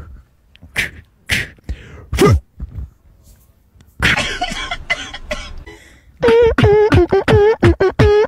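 A man's voice making short grunting noises, then from about six seconds in a fast, steady run of loud, pitched vocal noises, about five a second, each wavering in pitch, made along with his exercise moves.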